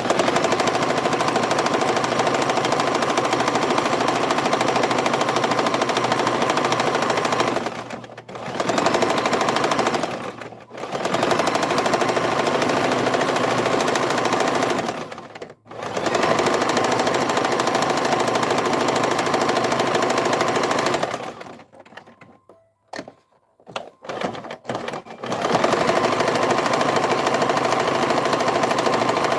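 Domestic sewing machine stitching a close zigzag, running in stretches of a few seconds with brief stops between. About two-thirds of the way through it pauses for several seconds, with a few faint small clicks, then starts again.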